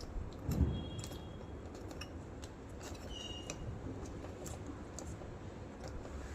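Scattered small clicks and light handling knocks, with one louder thump about half a second in, over a steady low hum.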